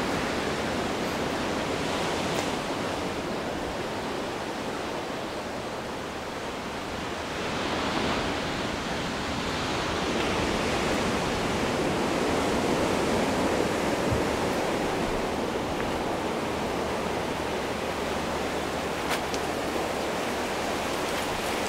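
Ocean surf breaking on the shore: a steady rush of water that swells now and then.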